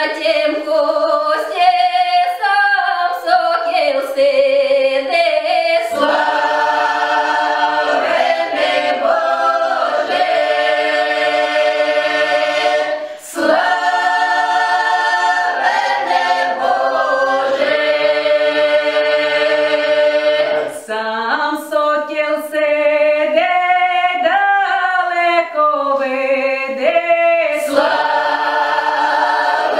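Folk choir of women's and men's voices singing a Ukrainian Christmas carol in several-part harmony, phrases held as long chords, with brief breaks for breath about 13 and 21 seconds in.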